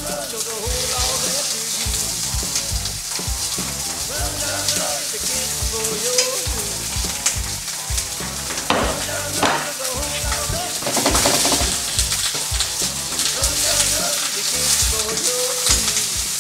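Muscovy duck breasts searing skin side down in a smoking-hot frying pan: a steady sizzle with crackling spits of fat as the meat is sealed.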